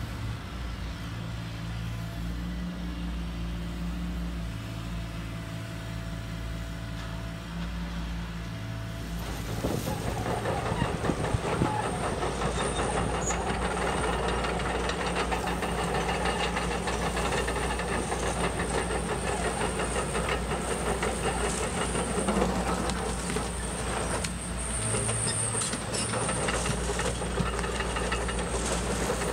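Electric motors of a HUINA 580 metal RC excavator whirring steadily. About ten seconds in, a louder, continuous clatter and scraping joins as its metal tracks and bucket work through gravel.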